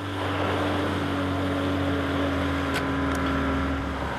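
Small boat's engine running steadily, with two short sharp clicks about a third of a second apart late on.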